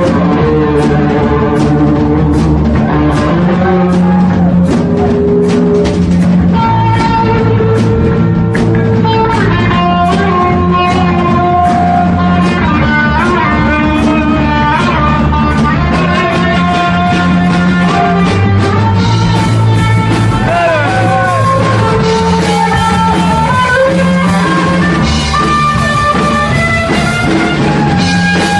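Live rock band playing loud: a guitar plays held melody notes with a bend about twenty seconds in, over bass and a steady drum beat.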